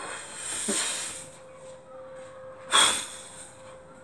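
A man sniffing and breathing heavily through the nose, with one loud, short sniff a little before three seconds in.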